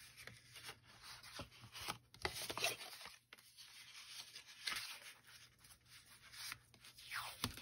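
Washi tape being pulled from its roll and pressed onto folded card stock, with hands rubbing and handling the paper: a string of faint, short rustles and scrapes.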